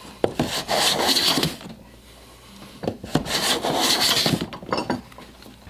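Hand plane taking shavings off a softwood 2x6 board to flatten it. There are two long strokes, each about a second and a half, each starting with a click as the plane bites and ending in a scrape.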